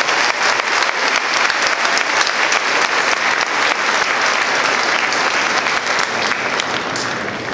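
Large crowd applauding, a dense stream of hand claps that eases off near the end.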